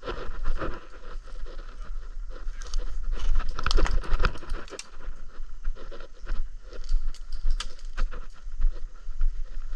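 Irregular rustling, crunching and scraping, like a player moving through brush and dry leaves with gear brushing together, over a low rumble of wind or handling noise. It is busiest around the middle.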